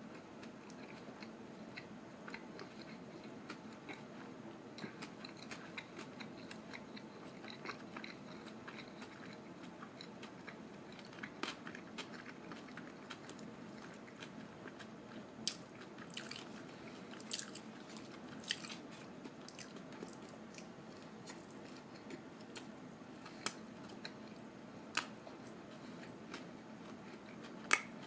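A person chewing a fish sandwich close to the microphone, with scattered sharp clicks that come more often in the second half, over a low steady background hum.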